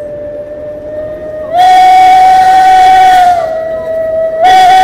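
Steam locomotive whistle sounding. A steady tone swells into a long, louder, slightly higher blast about a second and a half in, lasting about two seconds. It then drops back to the softer tone and gives a second short loud blast near the end.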